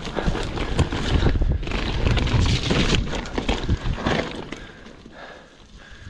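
Mountain bike rattling and knocking as its tyres roll fast over a rough, rooty dirt trail. About four seconds in it gets much quieter as the bike rolls onto smoother gravel.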